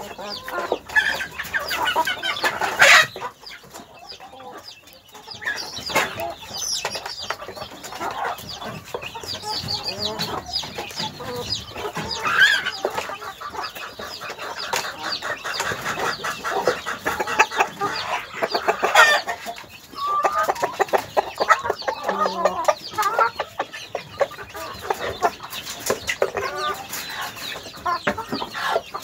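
Several domestic hens clucking and calling continuously, with a few sharp, louder knocks mixed in.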